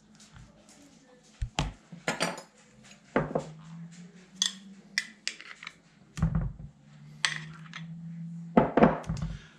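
Metal spoon clinking and scraping against a glass dish and a metal pizza pan as mashed sweet potato is scooped out and dropped onto the dough: a series of sharp, irregular clinks and knocks, loudest near the end.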